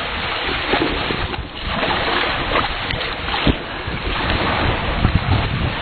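Wind buffeting the microphone over the wash of surf, with a single sharp knock about three and a half seconds in.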